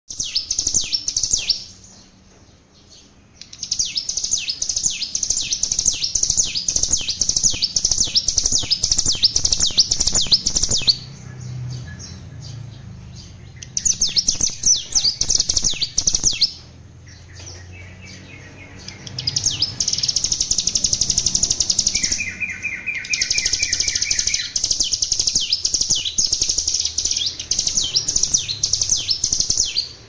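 Ciblek gunung (hill prinia) singing in long bouts of rapid, evenly repeated high notes, several seconds at a time, with short pauses between them. This is the fast-fire 'bren' delivery, which the bird is still learning. A lower, shorter trill comes twice in the middle.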